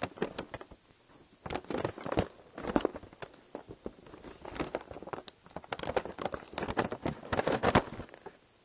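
Plastic bag packaging crinkling and rustling in irregular bursts as it is handled, dying away shortly before the end.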